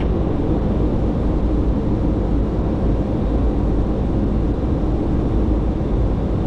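Steady low drone of a jet airliner's flight deck in flight: engine and airflow noise, constant and unchanging.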